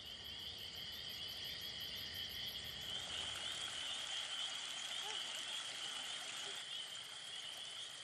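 Steady high-pitched chorus of calling frogs and crickets, swelling slightly a few seconds in.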